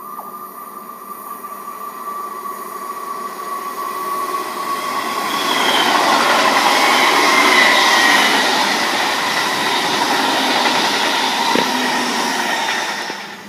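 Passenger train approaching and passing close by on the tracks, its wheel and rail noise building steadily to a peak about six seconds in, then holding loud as the carriages run past; it cuts off suddenly near the end.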